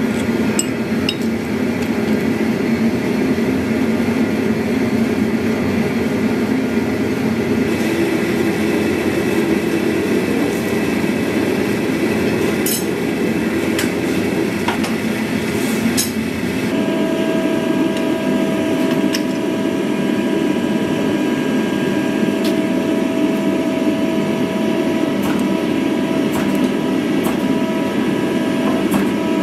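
Steady roar of a gas forge's burner, with a few sharp metallic clinks of tongs and tools. A bit over halfway through, a steady multi-tone machine hum starts up and runs on under the roar.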